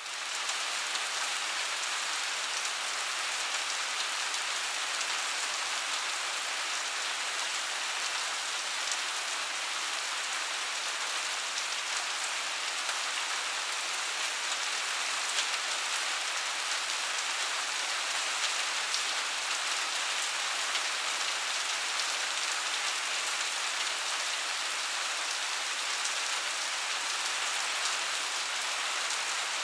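Steady rain falling, a continuous even patter of many small drops hitting a surface, with no thunder.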